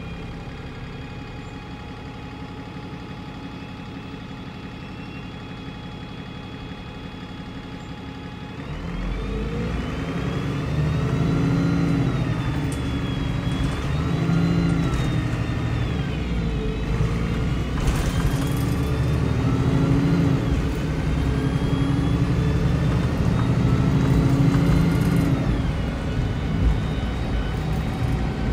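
Retrofitted Cummins diesel engine of an MAN 18.240 / Alexander Dennis Enviro300 single-deck bus, heard from inside the saloon. It runs at a steady, even note, then about nine seconds in it grows louder as the bus pulls away, its pitch rising and dropping several times as the gearbox shifts up.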